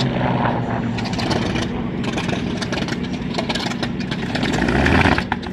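Warbird fighter's large radial piston engine being started, cranking over and firing into a ragged run, getting louder shortly before the end.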